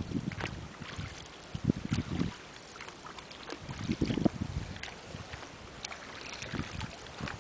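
Water splashing and lapping around a small wooden boat as it is paddled, in irregular low surges every second or two, with no motor.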